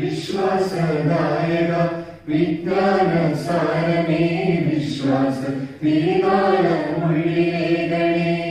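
A small group of voices singing a Malayalam Christian hymn together, in three long held phrases with short breaks between.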